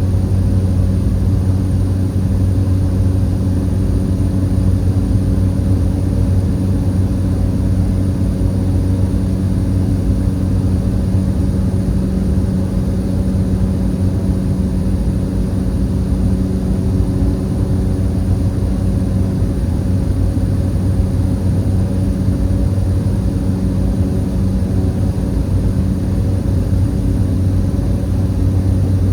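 Propeller airliner's engine and propeller running steadily at climb power, a constant low drone with a steady hum.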